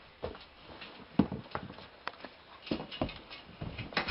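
Irregular thumps and knocks from a person scrambling onto the lower bunk of a metal bunk bed and kicking the top bunk from underneath.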